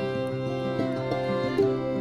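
Instrumental background music, a run of pitched notes changing every fraction of a second.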